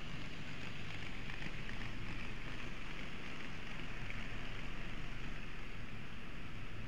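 N-gauge model train running along the track, a steady whirring hiss with a low hum, heard from a camera riding on the train.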